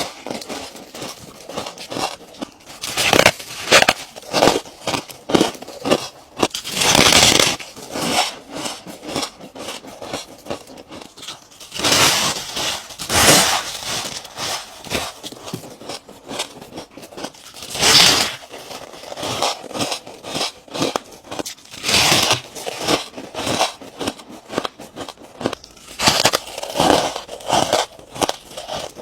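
A person biting and crunching ice: a run of irregular crisp crunches, with louder bites every few seconds.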